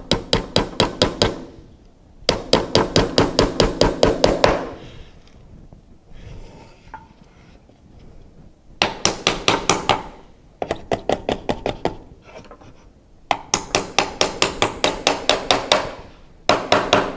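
Claw hammer driving small nails into the wooden roof boards of a birdhouse kit: quick light taps, about five a second, in several runs. The longest pause comes a few seconds in.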